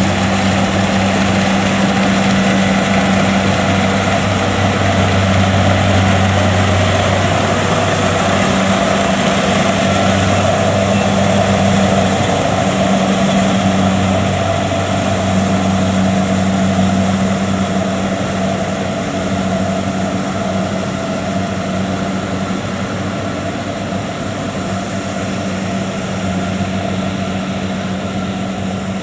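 Kubota DC70 Plus combine harvester's diesel engine running steadily under load while harvesting rice, easing a little quieter in the last third.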